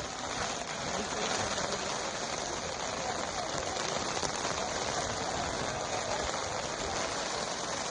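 Steady hiss of heavy monsoon rain falling, even and unbroken.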